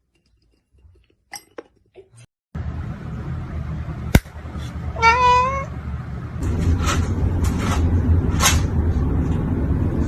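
A cat meows once, about five seconds in, over a steady low rumbling background. A sharp click comes just before the meow, and a few knocks follow it.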